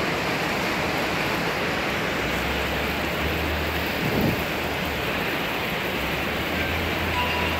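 Heavy rain pouring steadily, a dense even hiss of downpour on grass and leaves. A low rumble sets in about two seconds in and carries on under the rain.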